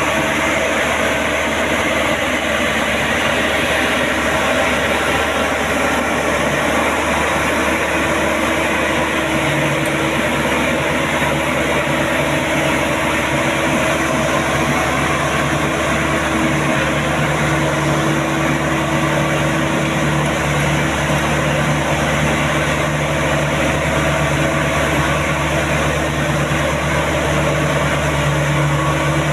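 Combine harvester's diesel engine and machinery running steadily at a loud, constant level, with a low drone that grows stronger partway through.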